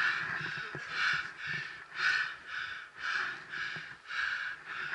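A person breathing hard and fast in a steady rhythm of about two breaths a second, with a few faint footfalls.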